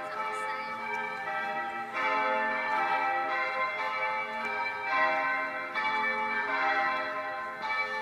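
Church bells ringing changes, bell after bell struck in steady succession, each tone ringing on under the next.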